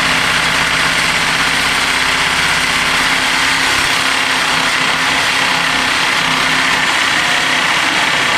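Corded reciprocating saw (Sawzall) running steadily, cutting through the lawnmower engine's exhaust pipe to remove the muffler.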